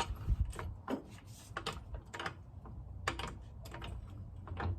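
Irregular light clicks and knocks of a floor jack being set into position under a car's front suspension.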